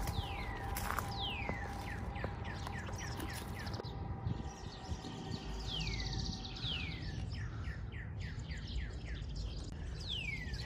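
A songbird singing the same phrase three times: a few long whistles sliding downward, then a quick run of shorter falling notes. A faint steady hum runs underneath.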